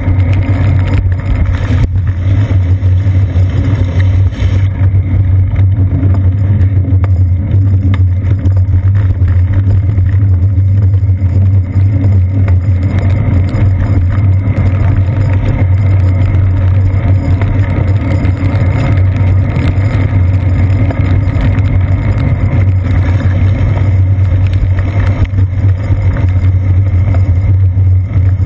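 Steady, loud low rumble of riding noise from a bicycle on wet streets, wind and road vibration picked up through a GoPro Hero 2's waterproof housing on the seat post, with car traffic mixed in.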